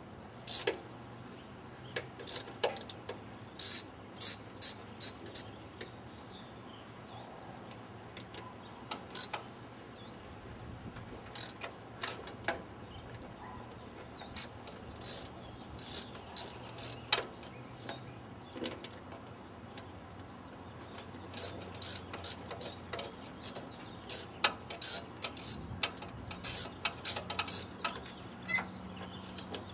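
Ratchet wrench clicking in short, irregular runs with pauses between them, as bolts are worked loose on the throttle body of a Ford 302 V8.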